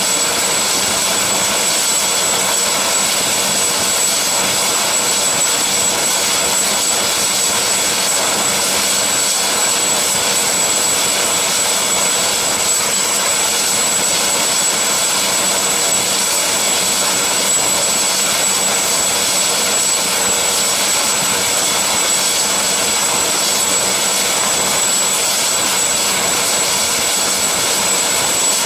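Helicopter running on the deck with its rotors turning: a steady turbine whine with a constant high tone over an even rush, unchanging throughout.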